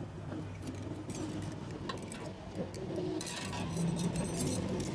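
Fluid poured from a bottle splashing over steel automatic-transmission clutch plates as hands rinse and turn them, with light metallic clinks of the plates against each other. The splashing gets denser about three seconds in, over a steady low hum.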